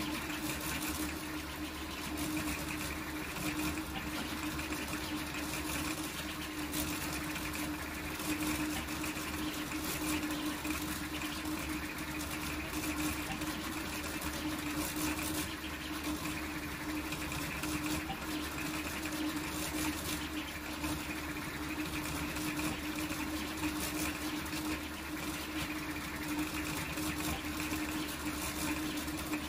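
Large toolchanger 3D printer printing at high speed: its motors give a steady hum with a fast, jittery buzz from the print head's rapid short moves, without let-up.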